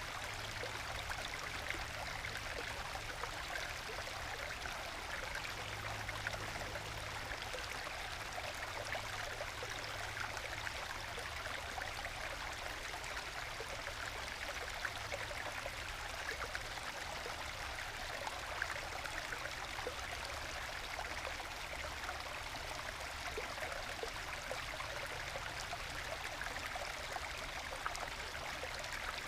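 Small forest stream trickling and gurgling over low waterfalls in bedrock and into small plunge pools: a steady, gentle babbling of flowing and falling water.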